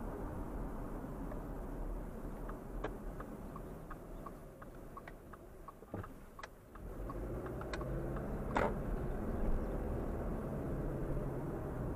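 Car road and engine noise heard from inside the car, dropping as the car slows to turn, with a turn-signal indicator ticking about three times a second through the middle. A sharper click comes about two-thirds of the way in, then the road noise rises again as the car pulls away.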